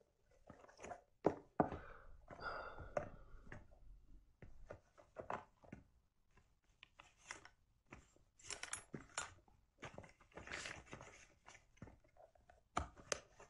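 Faint, irregular rustling, clicks and light knocks as small belongings are handled and picked up from a table.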